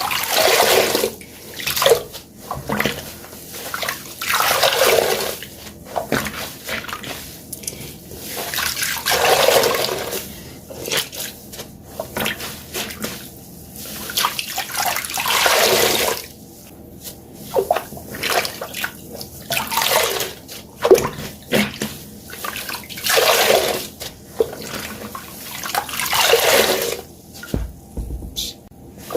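Water-soaked sponges being squeezed over and over, each squeeze sending out a gush of water, with wet squelching and crackling between the gushes.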